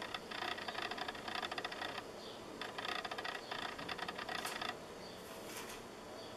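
Crinkly rustling of baking parchment under the pizza as hands arrange mushroom slices on it, in two bursts of about two seconds each with a short pause between.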